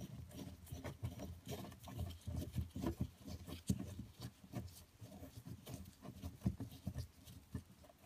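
Faint, irregular small clicks and scrapes as a quick-release handle is threaded by hand into a small machined steel and aluminium cam block, with gloved fingers rubbing on the parts.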